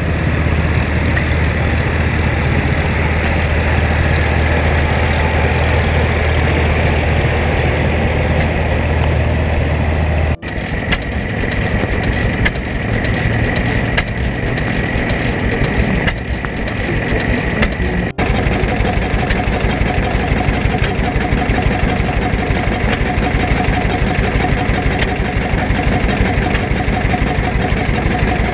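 Steam train on the move, heard from a carriage: a steady low rumble of the running train, which changes character twice at sudden cuts, the last part with a fast, even rhythmic clatter.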